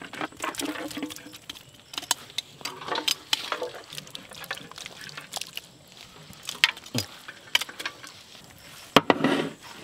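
Cooked mutton masala scraped off a plate onto rice in a large aluminium biryani pot and spread with a metal spoon: irregular clinks, knocks and scrapes of metal on the pot, with a sharp knock about nine seconds in.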